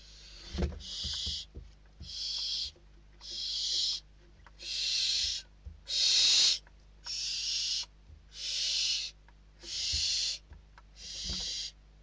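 Barn owl chicks giving their hissing, snore-like begging calls, about nine harsh hisses each just under a second long, one roughly every second, with a few soft thumps of the chicks scuffling and flapping on the nest-box floor.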